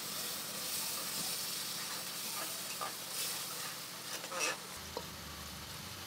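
Curry sizzling steadily in an aluminium pressure-cooker pot while a spoon stirs it, with a few clicks and scrapes of the spoon against the pot, the loudest knock about four and a half seconds in.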